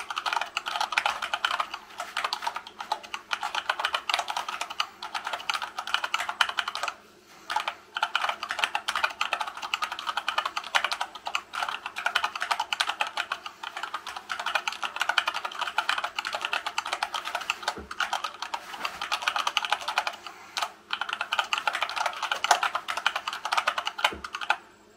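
Fast touch typing on a hand-wired split Dactyl Manuform keyboard with silicone-lubed Gateron Brown tactile switches in a 3D-printed wood-filament case: a rapid, continuous stream of keystrokes. There are brief pauses about seven seconds in and again past twenty seconds, and the typing stops just before the end.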